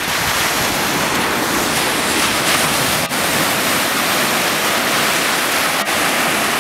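Small waves breaking and washing up a sandy beach close by: a steady, even rush of surf.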